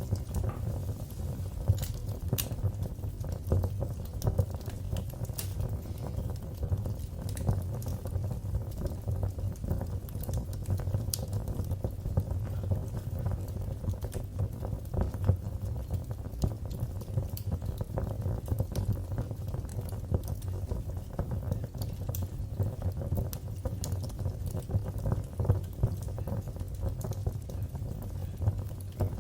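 Fire crackling in a fireplace: a steady low rumble of flames with frequent sharp pops and snaps scattered throughout.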